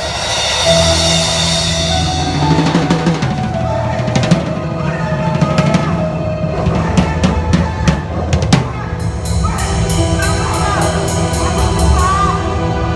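Band music led by a drum kit, bass drum and snare hits over sustained low notes, with the drum hits coming quicker in the second half.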